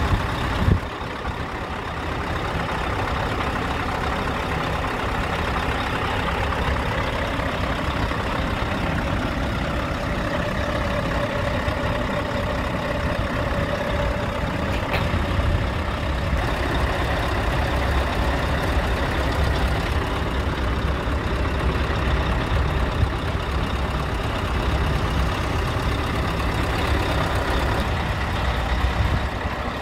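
Scania R tractor unit's diesel engine idling steadily, a continuous low rumble, with a brief knock about a second in.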